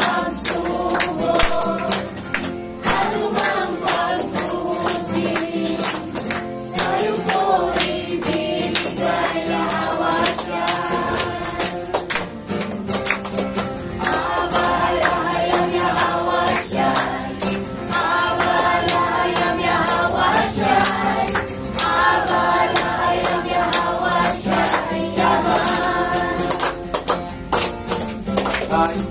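A congregation singing a praise song together in Tagalog, with hands clapping steadily in time with the song.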